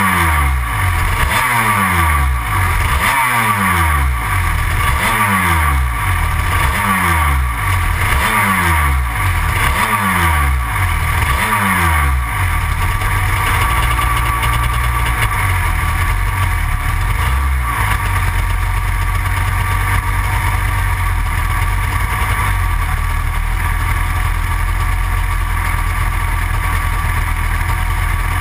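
Yamaha TZ250 two-stroke twin in a stationary superkart, blipped about once a second for the first dozen seconds, the revs falling straight back after each blip. It then settles to a steady low-rev idle.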